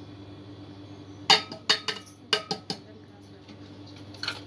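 Metal pots and utensils clattering: a quick run of sharp clinks and knocks, a couple of them ringing briefly, starting about a second in, then one more knock near the end.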